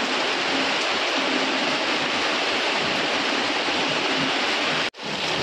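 Heavy rain pouring down, a steady even hiss of the downpour on the street and puddles. It cuts out for an instant near the end.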